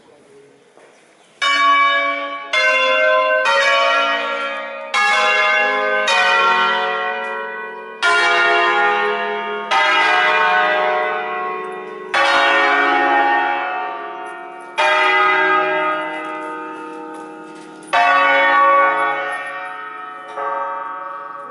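Church bells of an eight-bell peal in D-flat cast by Crespi in 1951, swung on wheels and rung in a melodic concerto: about eleven single strokes of differing pitch, each ringing on and dying away, starting about a second and a half in. The strokes come closer together at first and further apart towards the end.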